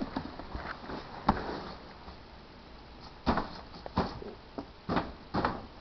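A toddler's hands slapping a fabric pop-up play tunnel: a string of irregular dull thumps, sparse at first and coming quicker in the second half.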